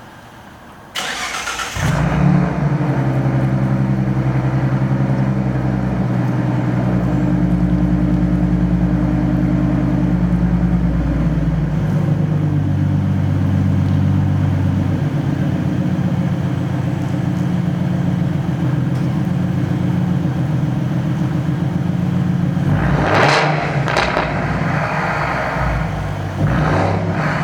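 2015 Ford Mustang with Flowmaster Outlaw exhausts: the starter cranks about a second in, the engine catches and settles into a steady, deep idle. Near the end it is blipped in a few short revs.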